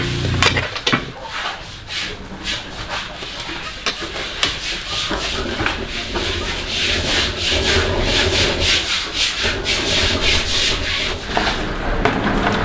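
Quick, repeated scraping strokes, a few a second, most regular in the middle stretch.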